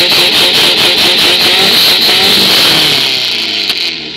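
Dune buggy engine held at high revs through its exhaust for a decibel measurement, loud and steady with a fast pulsing, then the revs drop away near the end.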